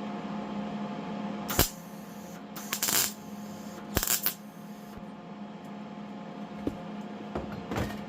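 A few short bursts of a gas-shielded MIG welder tacking small welds onto a steel door-handle part, each crackling for a fraction of a second, about 1.5, 3, 4 and 8 seconds in. A steady hum runs underneath.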